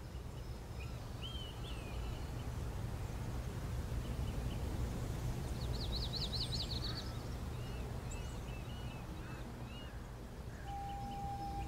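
Birds chirping with short rising-and-falling calls, and one fast trill a little past halfway, over a steady low rumble. A melody of stepped notes comes in near the end.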